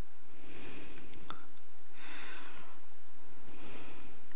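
A person breathing close to the microphone: soft puffs of breath about every second and a half, with a faint click or two.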